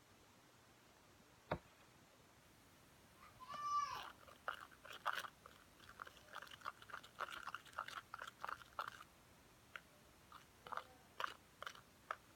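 Sticky homemade slime of glue, soap and sand being worked by hand: a run of short, irregular wet crackles and clicks in two spells, with one sharp click about a second and a half in and a brief squeak just before the crackling starts.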